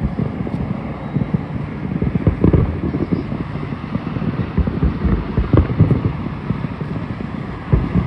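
Wind buffeting the microphone, a continuous low rumble with irregular gusty thumps.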